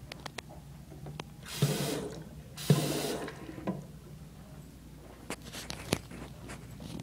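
Bathroom sink faucet running in two short spurts of water splashing into the porcelain basin, about half a second each, with scattered small clicks and knocks around them.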